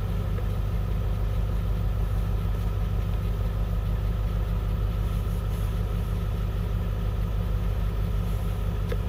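International school bus's diesel engine idling steadily.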